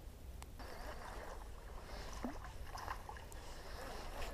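Faint rustling and light clicks of fishing tackle being handled: gloved hands on a soft-plastic lure, then a spinning rod and reel swung into a cast. A low steady rumble runs underneath.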